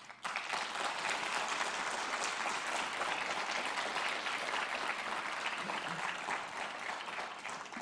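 Audience applauding, a sustained round of clapping that starts suddenly and eases off a little near the end.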